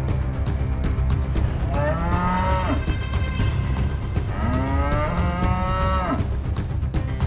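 A buffalo bellowing twice in long, drawn-out moo-like calls, the first about 2 seconds in and the second, longer one about 4.5 seconds in, over a steady low rumble.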